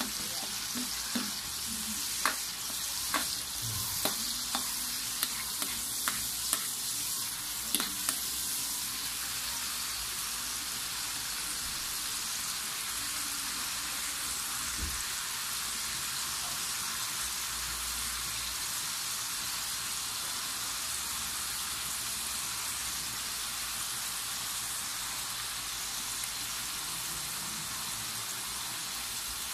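Sliced garlic, onions and chili frying in a dark sauce in a wok with a steady sizzle. A metal spatula scrapes and taps against the wok about a dozen times in the first eight seconds, then only the sizzle goes on.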